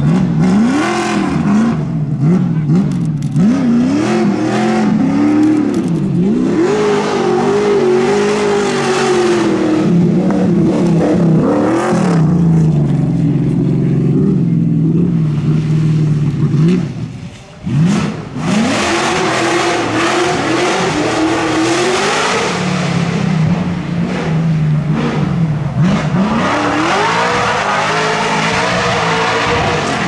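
Chevrolet V8 of a Firenza Can Am rally car with a side-exit exhaust, very loud, revving hard and rising and falling in pitch as it accelerates, lifts and changes gear along a rally stage. About two-thirds of the way in it drops out sharply for a moment, then climbs back up in repeated rising sweeps under full throttle.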